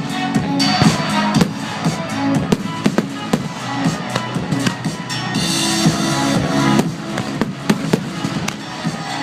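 Fireworks going off in quick succession, many sharp bangs with a stretch of crackling hiss about five and a half seconds in, over loud music.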